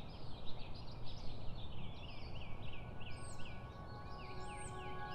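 Many small birds chirping and twittering in quick repeated calls over a steady low rumble. Sustained tones of background music come in over the second half.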